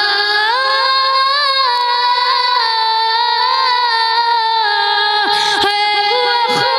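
A boy's high voice singing a naat unaccompanied, drawing one syllable out into a long melismatic line: quick pitch turns for the first two seconds, then a long steady held note that breaks off about five seconds in before a new phrase starts.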